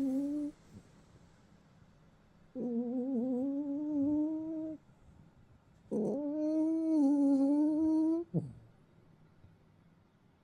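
A Bichon Maltese snoring lightly in its sleep. Each breath carries a steady, hum-like tone about two seconds long, heard twice in full with quiet pauses between. The tail of another is heard right at the start, and the last one ends in a quick falling slide.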